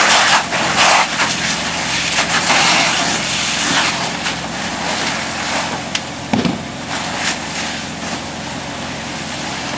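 A burning car being hosed down: a loud steady hiss of the water stream and flames, with scattered sharp pops and crackles from the fire and a steady low hum underneath.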